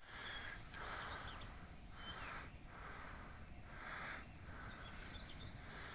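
Faint small birds chirping now and then over a soft hiss that swells and fades about once a second.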